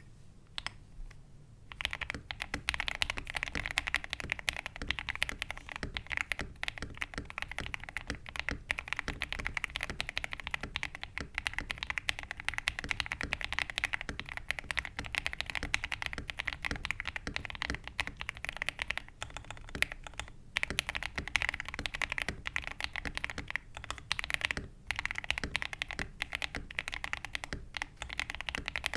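Fast, continuous typing on a gasket-mounted mechanical keyboard (Lychee G66Pro) with lubed Akko Rose Red linear switches, PBT ASA-profile keycaps and an aluminium plate, foam- and tape-modded. It starts with a few single keystrokes, then runs as rapid key strikes with short pauses a little after halfway and again a few seconds later.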